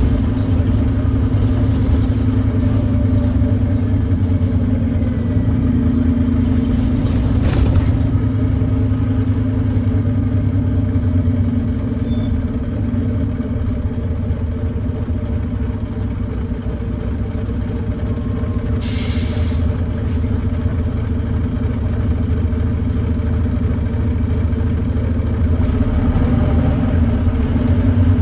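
Volvo D9B 9.3-litre diesel engine of a Volvo B9TL double-decker bus with an exhaust leak, heard on board running steadily under way; it eases off a little around the middle and picks up again near the end. A short burst of hiss cuts in about two-thirds through.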